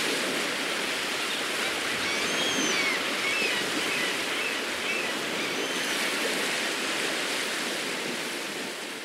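Steady rush of surf breaking on a beach, with a few faint bird chirps a few seconds in; the surf sound eases off near the end.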